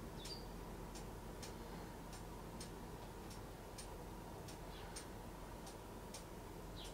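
A faint, even ticking, a little under two ticks a second, over quiet room tone.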